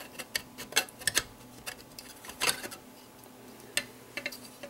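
Irregular light plastic clicks and taps as a plastic fan guard is handled and fitted back onto a finned aluminium heatsink.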